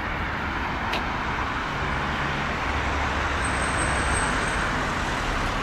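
Steady road traffic: a continuous rush of passing cars' tyres and engines, with a faint high-pitched whine for about a second midway.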